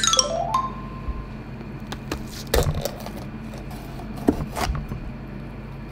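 Misono chef's knife cutting through a yellow bell pepper on a plastic cutting board: a few crisp cuts and knocks of the blade on the board over a steady kitchen hum. A short falling whistle-like tone sounds at the very start.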